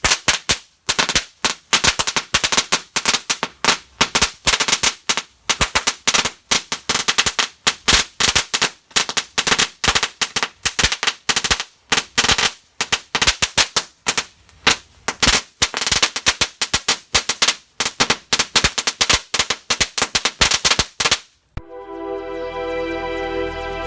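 A string of small firecrackers (a Judas belt) going off in a long, rapid, irregular series of sharp bangs, several a second, which stops abruptly. Background music starts near the end.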